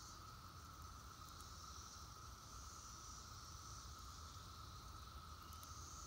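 Faint, steady drone of a Brood X periodical cicada chorus, one unbroken even pitch.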